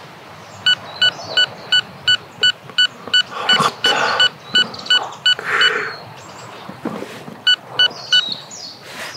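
Touch keys of an electronic whisky dispenser beeping: a rapid run of short electronic beeps, about three a second, as the pour volume is stepped up, then three more beeps near the end as it is stepped down.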